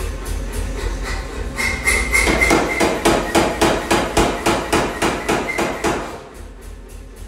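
Pneumatic power hammer striking a red-hot steel bar held in tongs: a fast, even run of heavy blows, about four or five a second, over the machine's steady low hum. The blows stop about six seconds in.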